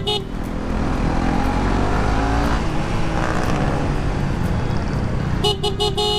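Motorcycle engine and traffic noise while riding, with a short blip of the newly fitted Bosch FC2 compact horn at the start and a quick series of about four horn toots near the end, the last held a little longer.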